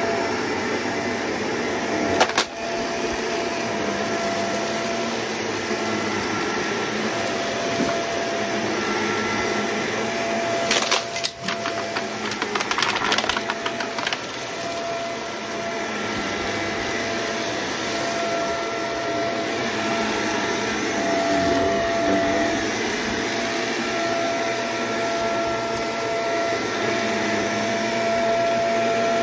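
Shark Lift-Away upright vacuum cleaner running with a steady whine as it sucks up pink and purple bits scattered on a rug. There is a sharp click about two seconds in, and a burst of rattling from about eleven to fourteen seconds in as the debris goes up into the machine.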